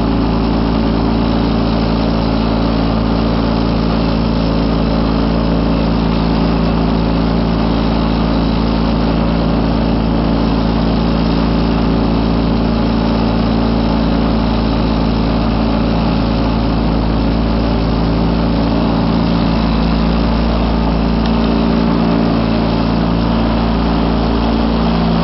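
Wheel Horse C195 garden tractor's Kohler KT19 horizontally opposed twin-cylinder engine running at a steady pitch while it drives a single-stage snow thrower that is blowing snow.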